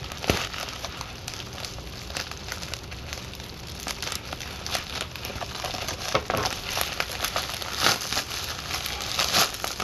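Package wrapping crinkled and pulled open by hand: a steady run of irregular crackles and rustles, with a few louder crinkles in the second half.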